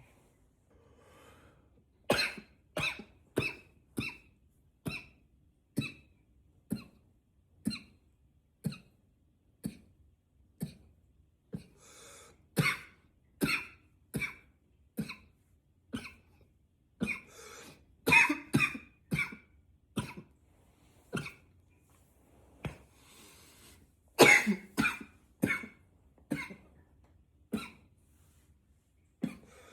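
A man coughing over and over: about thirty short, sharp coughs, coming in quick runs of several with brief pauses between runs.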